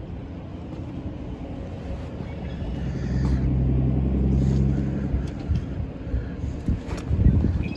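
A low engine rumble with a steady hum swells for about two seconds in the middle and fades, over a constant low rumble. A few sharp knocks follow near the end.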